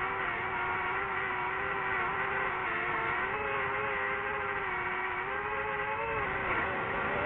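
DJI FPV drone's motors and propellers whining steadily, the pitch wavering slightly up and down with throttle.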